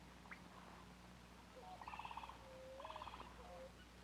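Faint animal calls over a steady low hum: two short, rapid trills about a second apart, with a few faint whistled notes around them.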